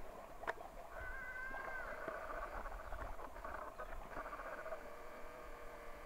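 Faint bird calls: a short whistle about a second in, then a rapid chattering trill for a few seconds, over a low rumble. A single sharp click half a second in is the loudest moment.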